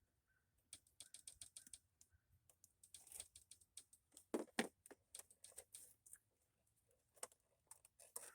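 Quiet, irregular clicks and light taps of small metal tools and screws being handled while working on a scooter carburetor, with a louder cluster of knocks about four and a half seconds in.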